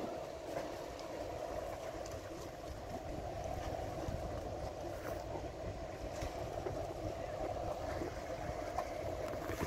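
Steady drone of a large passenger ferry passing close by, with wind rumbling on the microphone.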